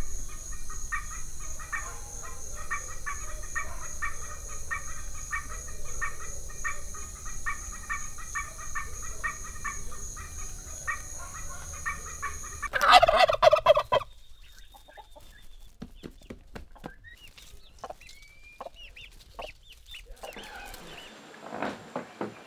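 Domestic fowl calling: a long run of short repeated notes over a steady high drone, then one loud call lasting about a second a little past halfway. After that the sound drops to sparse, faint bird calls and clicks.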